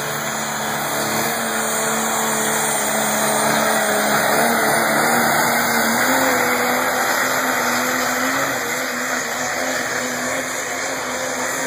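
Dodge modified stock pulling truck's engine running hard under load, its pitch creeping slowly upward.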